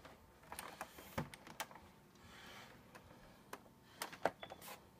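Faint, scattered clicks and small plastic knocks of cables and connectors being plugged back into an Xbox 360 Slim console, in two short clusters with a pause between.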